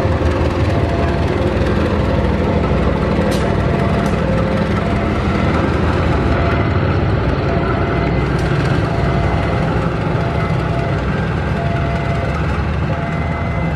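KAI CC 203 diesel-electric locomotive hauling a passenger train slowly past, a loud steady rumble of its engine mixed with the coaches rolling along the track.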